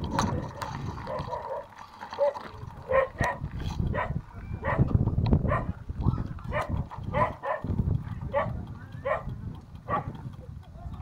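A dog barking about a dozen times in short, evenly spaced barks, starting about three seconds in, over a steady low rumble.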